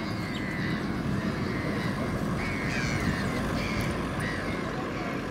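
Steady rumble of passing road traffic, with a few faint, high, short calls of a hamerkop over it, some of them falling in pitch.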